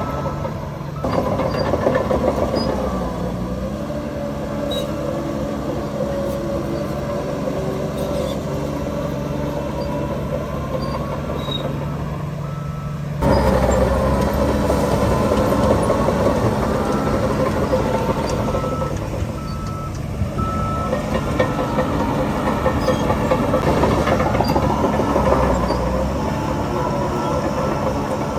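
Heavy diesel earthmoving machinery working: bulldozer and dump-truck engines running under load, their pitch rising and falling as they rev. The sound jumps abruptly louder about a second in and again about 13 seconds in, and a reversing alarm beeps for a few seconds midway.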